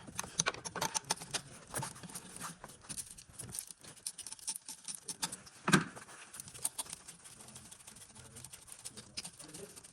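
Irregular light clicking and tapping of hand tools and metal parts being handled during work on the car, with one louder knock about six seconds in.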